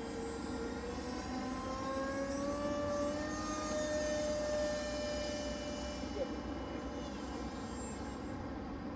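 Electric motor and propeller of an RC Horten BV-38 flying wing whining in flight, its pitch rising about a second and a half in, holding steady, then dropping away near six seconds as the throttle or distance changes.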